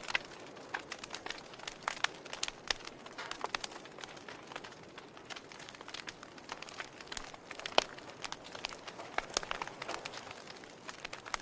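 Fire crackling: irregular sharp pops and snaps over a soft steady hiss, with one louder pop about two-thirds of the way through.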